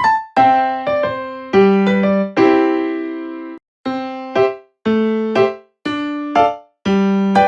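Background music: a light, bouncy electric piano tune of short struck notes and chords, with brief pauses between phrases.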